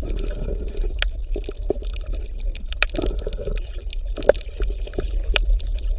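Underwater water sound: bubbling and scattered clicks and crackles over a steady low rumble.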